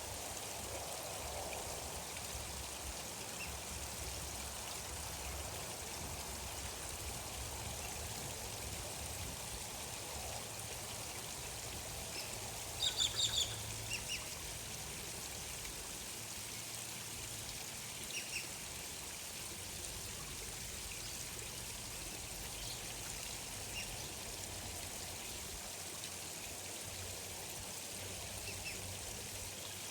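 Steady flowing water, like a gentle stream, with brief high bird chirps over it: a quick run of four about halfway through, then a few single chirps.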